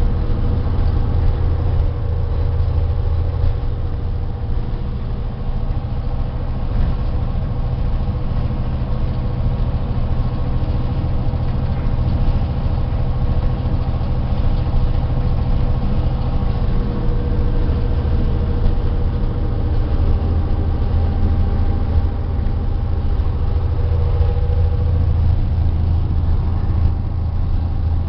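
Victorian Railways Y class diesel-electric locomotive's engine working flat out in throttle notch 8, heard from inside its cab as a loud, steady, deep drone with a steady hum higher up.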